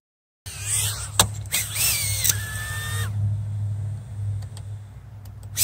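Tiny whoop micro quadcopter's 6 mm brushed motors whirring: a whine that rises in pitch, holds steady for about a second and cuts off about three seconds in, over a steady low hum.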